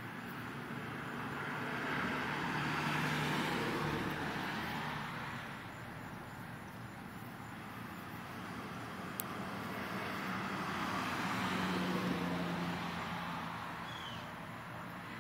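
Cars passing on the road: tyre and engine noise swells and fades twice, one car about three seconds in and another about twelve seconds in.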